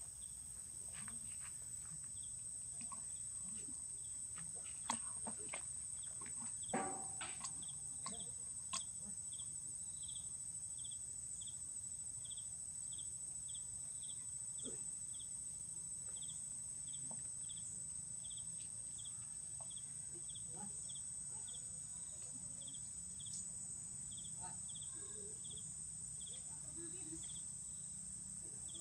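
Insects calling: a steady high-pitched drone with a short chirp repeating about twice a second. A few short clicks and rustles sound about five to nine seconds in.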